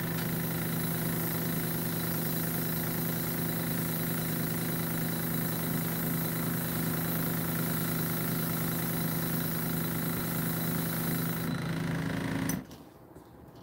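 Small airbrush compressor running with a steady hum while the airbrush hisses, spraying paint. The hiss stops about eleven seconds in and the compressor cuts off abruptly a second later.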